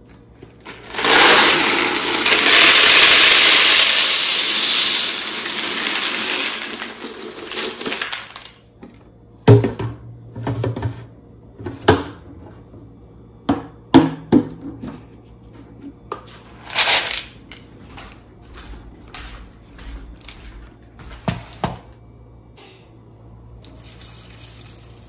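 Dried chickpeas poured from a plastic jar into a plastic bowl: a loud rushing rattle for about seven seconds that tapers off, then a run of separate knocks and clicks as the jar is handled. Near the end, water starts pouring onto the chickpeas to soak them.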